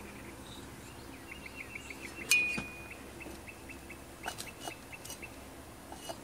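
A small bird chirping over and over in the background, a quick run of short notes. Among the chirps come a few metal clinks as the chainsaw's piston ring is handled, the sharpest about two seconds in with a brief ring after it.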